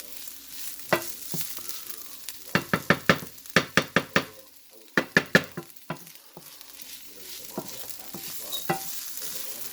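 Garlic and green onions sizzling in a frying pan as they are stirred, with two quick runs of sharp taps a few seconds in.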